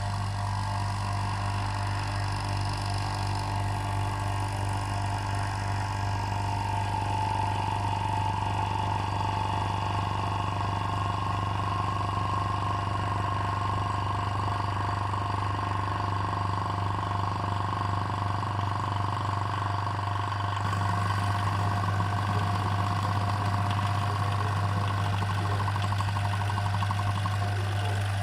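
Electric vacuum pump running steadily with a low hum, switched on just before, pumping air out of the vessel to lower the pressure so the water boils. About two-thirds of the way through it grows slightly louder and rougher.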